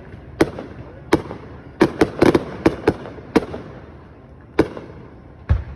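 Fireworks display, a series of sharp bangs from bursting shells. A quick cluster comes about two seconds in, then the bangs spread out, with the last one near the end.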